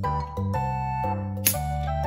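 Background music with bell-like notes. About one and a half seconds in there is a short sharp hiss as the cap of a plastic sparkling-water bottle is cracked open and the gas escapes.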